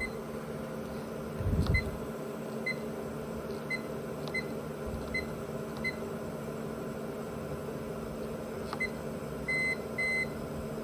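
APC Symmetra LX UPS display panel giving short high beeps, about one a second, as its keys are pressed to scroll through the fault and power-module menus, with two longer beeps near the end. A steady hum from the UPS's cooling fans runs underneath, and there is a low bump about one and a half seconds in.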